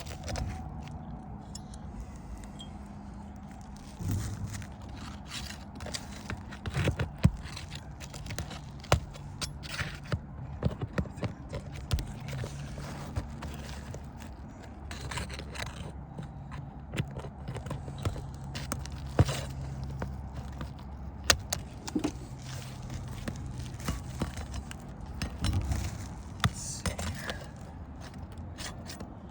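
Asphalt roofing shingles being pried loose: scattered sharp taps, clicks and scrapes, over a low steady hum.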